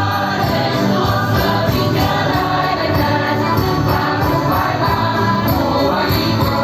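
Lively Portuguese folk music played continuously, with a group of voices singing along.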